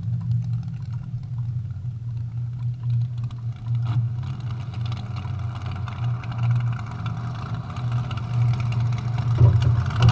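Front-engine dragster's V8 engine idling, a steady low lumpy pulse, swelling a little louder near the end.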